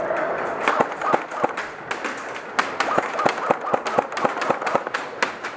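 Airsoft gunfire and BB hits: many sharp, irregularly spaced clacks, several a second, after a steady rushing noise dies away in the first half second.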